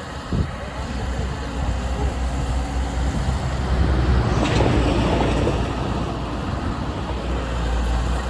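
Volvo ECR 145 excavator's diesel engine running steadily. A sharp knock comes about half a second in, and a louder stretch of rough, noisy clatter comes around the middle.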